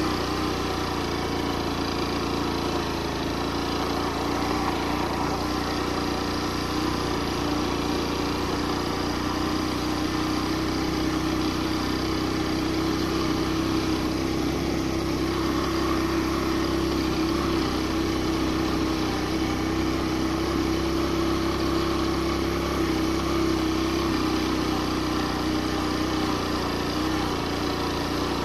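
Suzuki GN125 motorcycle's single-cylinder four-stroke engine running steadily at an even pitch, with no revving.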